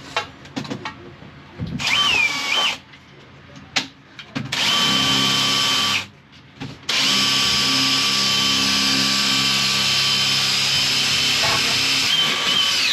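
Electric drill running in bursts: a short burst about two seconds in that drops in pitch and recovers as it bites, a longer run, a brief stop, then a long steady run.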